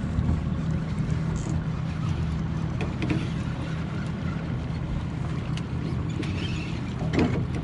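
Boat's outboard motor running steadily, a low even hum, with water and wind noise over it and a few faint clicks.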